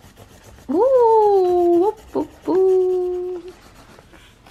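A child's voice giving a long, drawn-out 'ooh' twice: the first swoops up and slowly falls, the second holds one pitch. Under it, crayon rubbing on paper makes faint, quick strokes.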